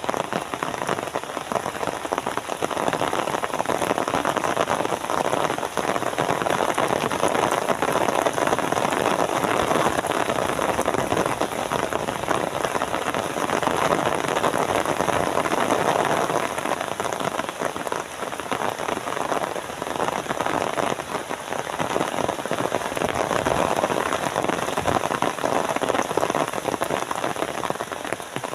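Steady rain falling and pattering on surfaces, swelling and easing a little in strength.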